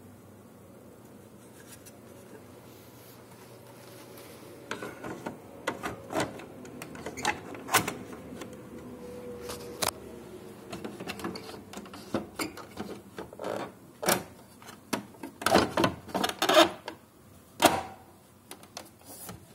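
Plastic clicks and knocks of a waste toner container being handled and fitted into a Samsung colour laser printer, scattered at first and then a quick cluster of louder clicks near the end as it is pushed into place.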